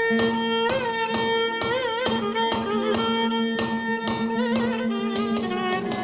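Light, sharp metallic taps, about two to three a second, from a small hammer striking an engraving chisel on a metal pitcher, under background music carried by a bowed-string melody.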